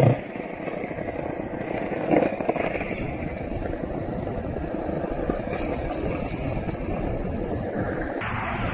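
Skateboard wheels rolling steadily over city pavement, with a sharp knock at the start and another about two seconds in.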